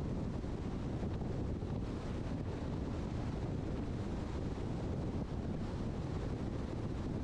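Steady wind and road noise from a car driving, a constant low rushing sound with no change in level.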